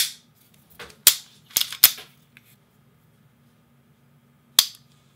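Sharp metallic clicks of a SIG Sauer P226's action being dry-fired in single action: the hammer falling and the trigger resetting. There is a loud click at the start, a quick group of three about a second in, and another loud click near the end.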